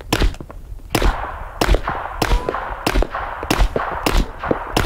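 Faxon Hellfire FX-19 9mm pistol fired through a suppressor in a steady string of about eight shots, roughly one every 0.6 seconds.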